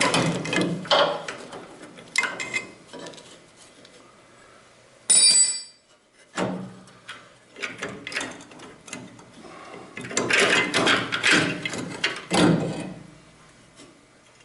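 Hand tools and loose metal hardware clinking and clattering while a car tailgate is taken apart, in irregular bursts with quiet gaps. About five seconds in comes one short, bright ringing metal clink.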